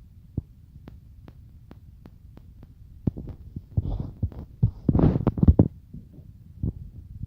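Packaging and accessories being handled during an unboxing: a series of light clicks, then from about three seconds in louder knocks, thumps and rustling as items are lifted out and set down.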